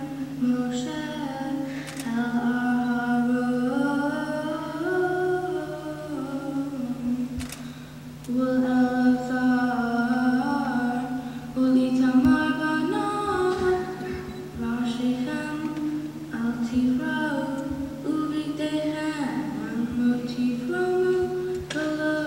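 Girl chanting Hebrew Torah verses in traditional cantillation, one unaccompanied voice holding and bending notes in phrases with short breaths between. A steady low electrical hum runs beneath.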